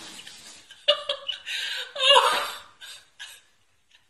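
A person laughing in high-pitched bursts, loudest about two seconds in, with a sharp knock at the start and another about a second in.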